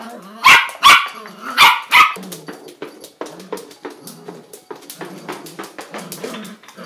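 Shetland sheepdog puppy barking four sharp times in the first two seconds, excited at a push-along duck toy. A quieter run of light clicks and clatter follows.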